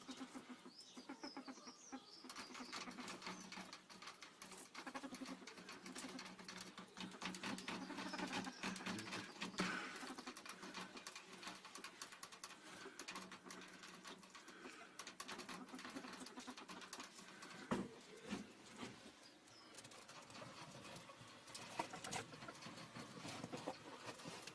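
A ferret moving about a shelf and a cardboard box: a busy, irregular patter of light scratches, taps and rustles.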